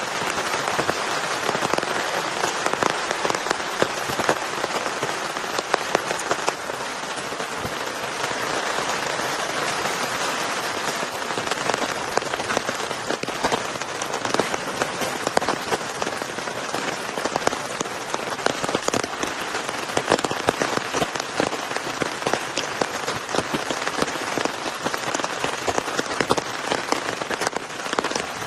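Heavy rain falling steadily, with many sharp individual drop hits through a constant hiss.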